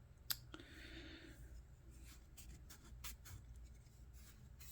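Faint handling noise from a Victorinox Swisstool multi-tool with its file blade out. There is a sharp click, then a soft scrape lasting about a second, then a few light ticks.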